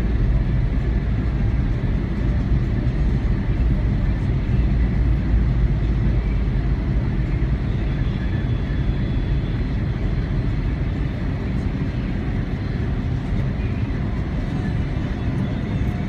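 Steady low rumble of a car's engine and tyres heard from inside the cabin while driving in traffic, a little quieter in the second half.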